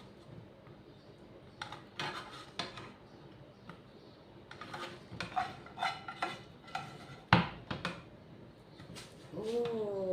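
A cooking utensil clinking, knocking and scraping against a pan as pasta is stirred into a cream sauce, in irregular strokes, with one sharp clank about seven seconds in.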